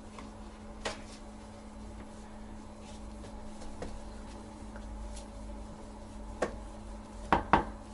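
Light knocks and clicks of a raised plastic toilet seat being wiped underside with a cloth in a gloved hand, with two sharper knocks close together near the end, over a steady low hum.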